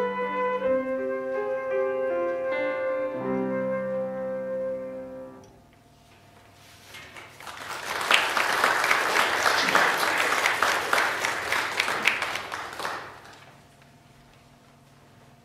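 Flute and piano play the final held notes of a piece, fading out about five seconds in. After a short pause, an audience applauds for about six seconds, then the applause dies away.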